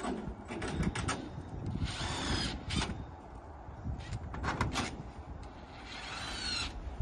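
Cordless drill drilling holes through a polycarbonate greenhouse sheet into the pre-drilled frame, in two short runs about two seconds in and near the end, its whine shifting in pitch. Clicks and knocks from the sheet being handled come between the runs.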